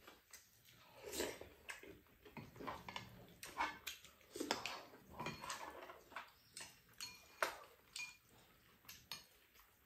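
Close-up eating sounds: irregular chewing and slurping mouth noises, with a metal spoon clinking and scraping against a frying pan and bowls.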